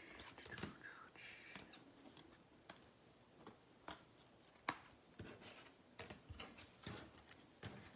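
Faint, scattered clicks and taps of trading cards being handled and set down on a table, with one sharper tap about four and a half seconds in.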